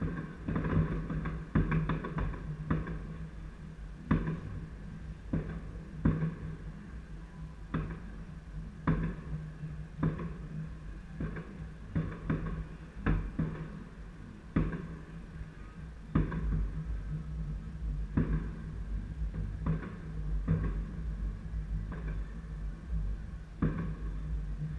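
New Year fireworks exploding: a string of sharp bangs at irregular intervals, some close together and some a second or more apart.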